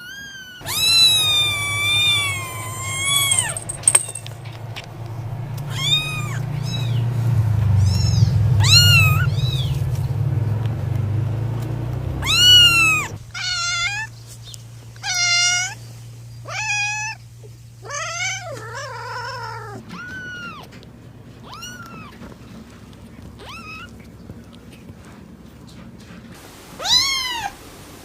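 Kittens mewing: a string of about fifteen short, high-pitched mews, each rising then falling in pitch, the first one long and wavering. A low steady rumble sits under the first half and stops about halfway through.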